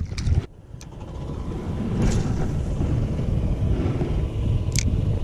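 Brief splash of water as a small trout is let go, then a steady low rumble that builds over about two seconds and holds, with one sharp click near the end.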